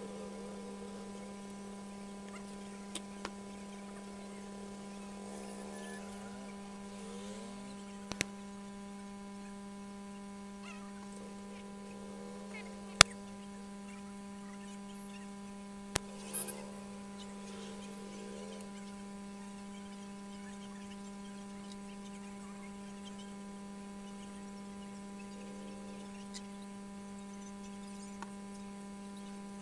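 Steady electrical mains hum, with a few sharp clicks and taps from work on the bench, the loudest about 13 seconds in.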